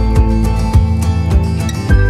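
Background music with sustained notes over a steady beat.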